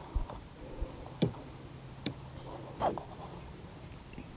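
A steady, high-pitched chorus of insects, with a few light knocks and taps from handling gear in a wooden boat.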